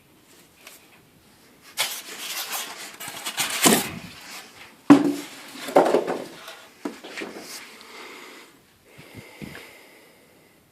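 Unboxing handling noise: a rustle of packaging for about two seconds, then a few knocks and bumps as parts are moved about.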